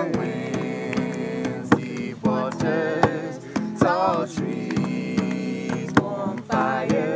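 Acoustic guitar played with a voice singing over it in wavering, drawn-out lines, and sharp percussive hits keeping the beat.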